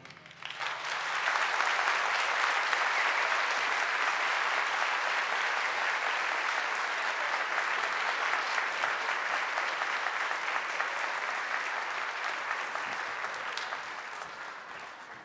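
Concert audience applauding after an orchestra's final chord: the clapping swells within the first second, holds steady, then thins out and fades near the end.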